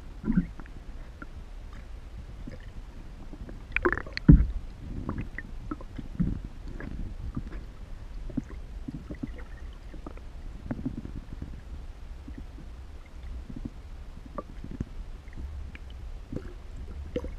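Muffled underwater sound picked up by a camera held beneath the lake surface: a low, steady rumble with scattered small clicks and knocks, and one loud thump about four seconds in.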